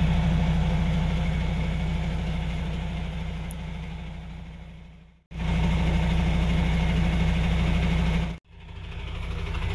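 Truck's diesel engine idling with a steady low hum. It fades away to nothing about five seconds in, comes back abruptly, and cuts out briefly again near the end.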